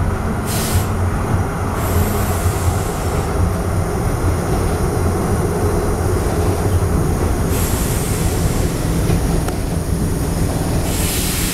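Interior running noise of a tram under way: a steady low rumble of wheels on rail and running gear, with brief rises of higher-pitched rail noise a few times.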